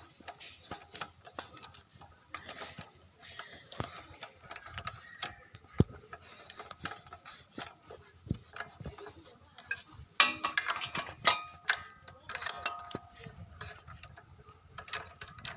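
Hand tools clicking and knocking on metal as the bolts over a new gasket on a petrol generator engine are tightened: a run of short, irregular clicks, thickest about ten seconds in.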